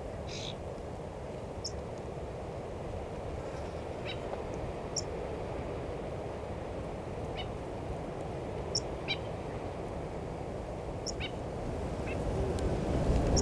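Wild birds giving short, high chirps, about a dozen scattered through, over a steady low rush of wind that grows louder near the end.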